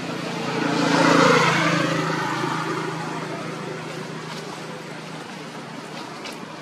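Engine of a passing motor vehicle: a steady hum that swells to its loudest about a second in, drops in pitch, and slowly fades.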